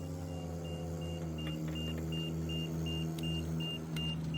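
Heavy diesel truck's engine running while its backup alarm beeps steadily, about three beeps a second. The engine note drops slightly about a second in.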